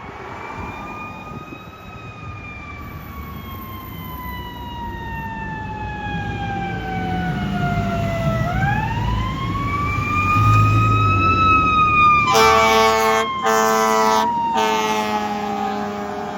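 Fire engine siren wailing in long, slow rising and falling sweeps over the low rumble of the truck's engine. About twelve seconds in, the air horn sounds in three blasts, two longer and a short one, the loudest part. The truck grows louder, then fades toward the end.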